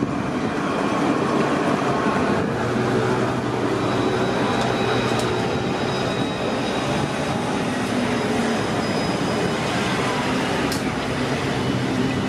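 Alstom Citadis 402 electric tram running past close by: a steady rolling rail noise with faint high steady tones over it.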